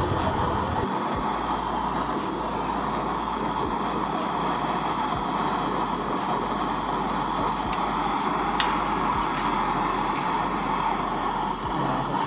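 MAPP gas torch flame running steadily while brazing a leaking copper refrigerant tube with bronze rod.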